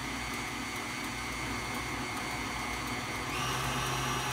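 Electric stand mixer beating cake batter in its steel bowl with a steady motor whine; a little over three seconds in, the whine steps up in pitch and gets slightly louder as the speed is raised.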